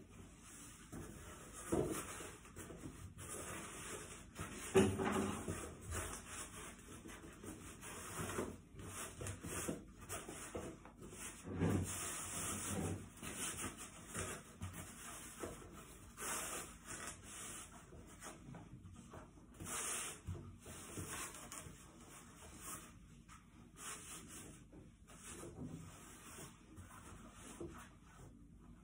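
Cloth rustling and rubbing in irregular bursts as a blouse is handled and fitted onto a dress form, with a few soft bumps mixed in.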